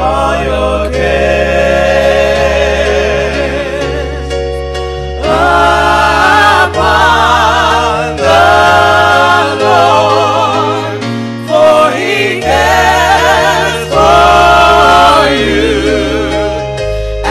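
Gospel music: a choir singing with vibrato over sustained bass notes that change every few seconds.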